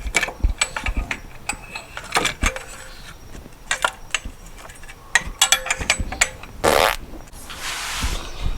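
Irregular clicks and knocks of metal parts and tools handled in an engine bay as a new EGR valve is fitted. A short, loud rasping burst comes about two-thirds of the way through, and a softer hiss follows near the end.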